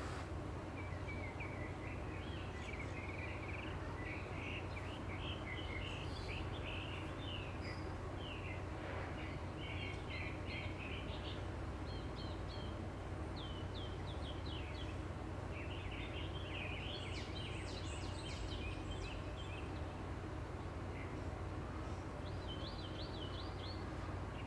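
Small birds chirping in quick, high runs that come and go, over a steady low background hum.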